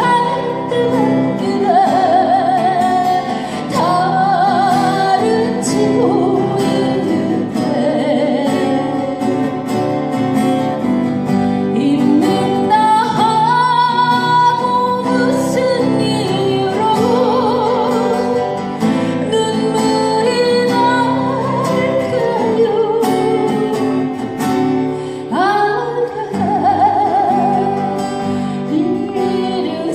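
A woman singing a slow Korean folk ballad with a wavering vibrato, over acoustic guitar accompaniment.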